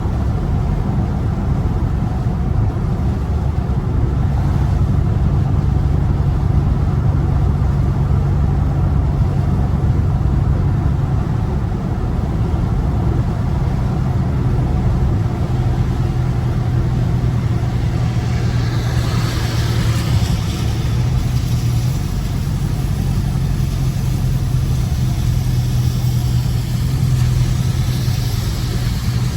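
Dodge Scat Pack's 6.4-litre HEMI V8 running steadily while driving, a constant low drone. A higher hiss swells about two-thirds of the way through and again near the end.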